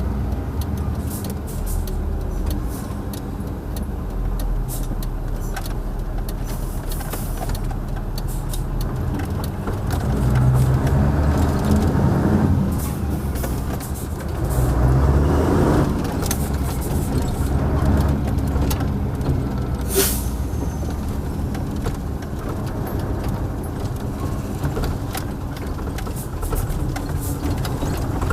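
The 1989 Mercedes-Benz SK 1748 truck's V8 turbodiesel running on the move. It pulls harder twice, about a third of the way in and again about halfway. Around two-thirds through there is a brief sharp hiss.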